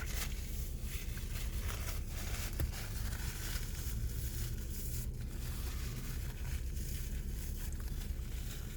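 Soft crinkling and rustling of food packaging being handled, with a few light clicks, over a steady low hum.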